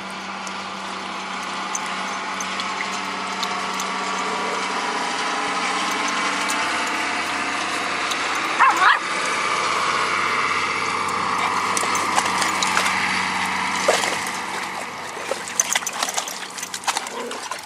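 Garden hose pouring water into a plastic kiddie pool, a steady rushing hiss, while a small dog paddles in it. A brief dog whimper comes about 8.5 s in, and near the end there is choppy splashing as several dogs move about in the water.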